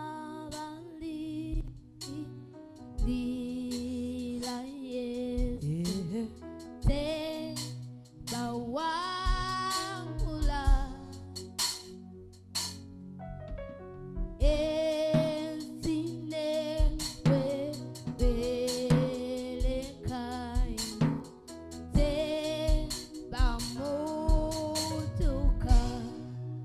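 Live gospel worship song: a lead voice singing with vibrato and sliding notes, backed by a band with a drum kit and a steady bass line.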